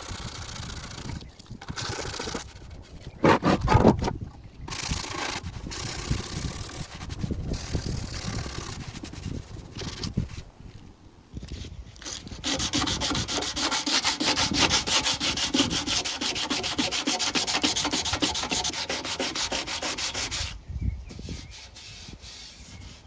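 180-grit sandpaper scratching back and forth over the painted steel deck of a Sovereign lawnmower, knocking back high spots before priming. A brief loud thump comes about three seconds in. From about twelve seconds in until near the end, the sanding strokes come fast, even and louder.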